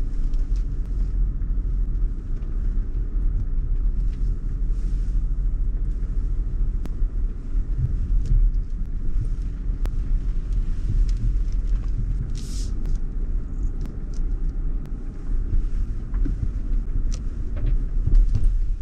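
Land Rover driving slowly off-road over a rough, muddy track: its engine running low and steady, with scattered knocks and creaks from the body and suspension. A short hiss about twelve seconds in.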